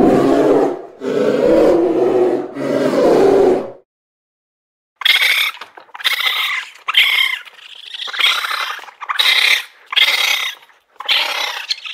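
A polar bear vocalizing: three long, low calls. After a second's pause, a raccoon gives a run of about ten short, high-pitched calls in quick succession.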